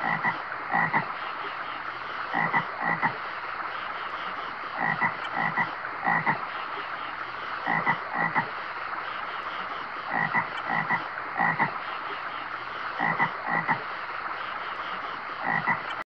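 Frog croaking in groups of two to four calls that come back every two to three seconds, over a steady rush of flowing water.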